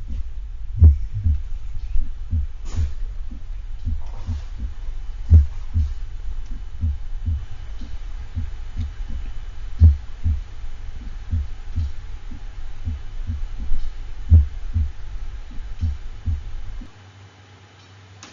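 Simulated heart sounds from a heart sound simulator: a relatively fast, regular train of low thuds, a few beats noticeably louder than the rest, stopping about 17 seconds in. It represents third-degree AV block with a ventricular escape rhythm, in which soft S4 sounds may be noticed between the S1 and S2.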